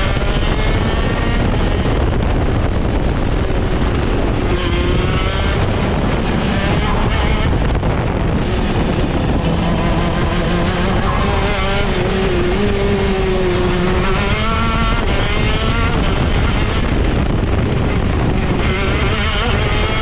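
Go-kart engine running hard on track, its pitch climbing and falling several times as it accelerates and slows.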